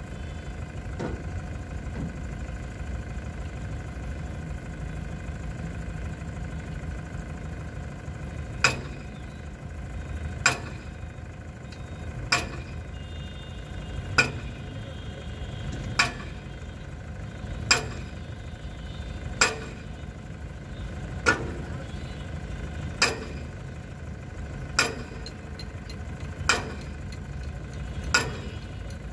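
Diesel engine of an Escorts Hydra 14 pick-and-carry crane running steadily. About nine seconds in, sharp regular knocks begin, one roughly every two seconds, louder than the engine.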